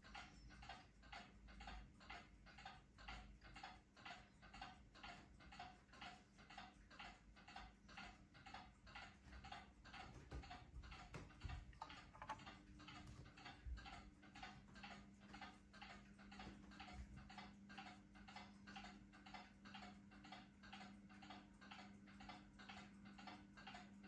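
Casablanca ceiling fan running, with a faint, steady ticking about twice a second, from a fan whose ball bearings the owner says are bad. About halfway through, after a few low knocks, its motor hum grows louder.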